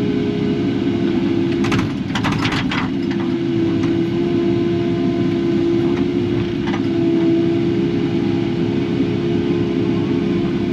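Kubota KX080 excavator's diesel engine running steadily under work, with a constant whine over the engine noise. A few sharp knocks come about two seconds in.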